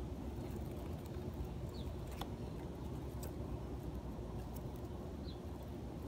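Outdoor grassland ambience: a steady low rumble with two short high bird chirps, one about two seconds in and one near the end, and scattered faint clicks.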